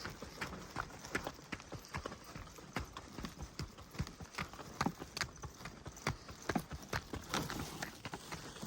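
Steps along a forest track: a run of short, uneven knocks, several a second.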